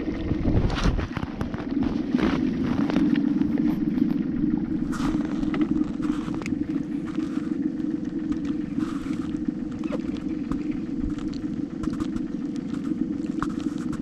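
A boat motor running with a steady low drone, with scattered light clicks and knocks on top.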